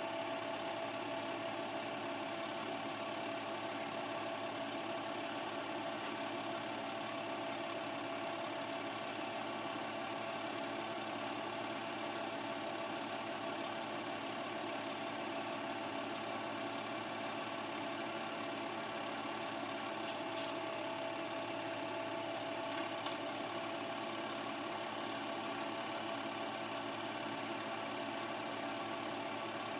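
Home-movie film projector running, a continuous mechanical whirr with a faint steady whine.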